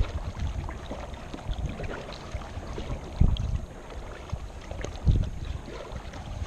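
Wind buffeting the microphone in uneven low rumbling gusts, the strongest about three and five seconds in, with water noise around a kayak on open water.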